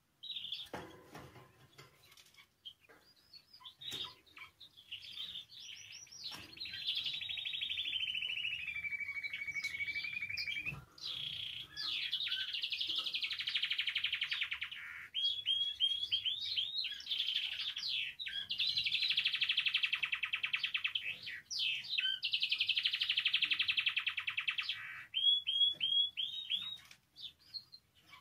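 Spanish timbrado canary singing: a few short chirps, then long rolling trills, one gliding down in pitch, with quick rising notes between the rolls.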